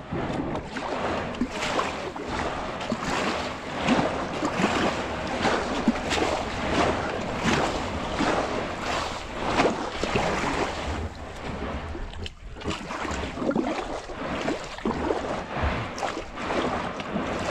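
Kayak paddle blades dipping and pulling through shallow water: repeated splashes and drips, one stroke after another.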